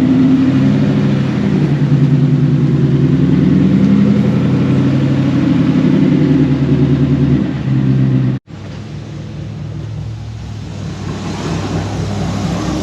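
Ford Mustang GT's Gen 3 Coyote 5.0 V8 running close by, a loud steady low rumble with slight rises in pitch. About eight seconds in the sound breaks off abruptly, and a quieter engine rumble follows.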